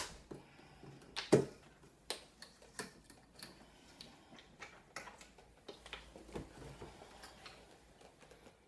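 Scattered light clicks and taps as a window blind cord is wound and hooked onto a cord cleat on the window frame. The loudest click comes a little over a second in.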